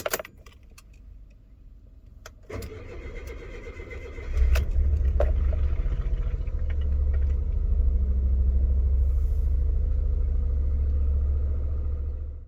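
Suzuki K6A three-cylinder engine being started: a few clicks, then it catches about four seconds in and settles into a steady low idle. This is the engine running with a failed exhaust valve in the no. 2 cylinder, which gives it vibration and an odd, uneven exhaust note.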